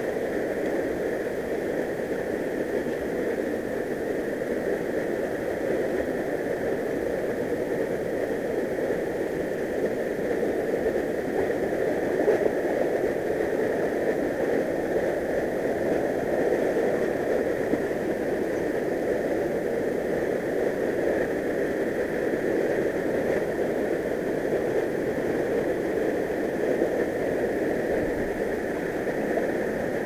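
Mountain stream rushing steadily over rocks in a shallow riffle, an even wash of water noise.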